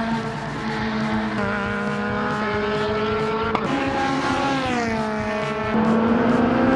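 Sports-prototype race car engines at high revs on track, more than one engine note at once. The pitch falls about four seconds in, then climbs and gets louder about six seconds in as a car accelerates.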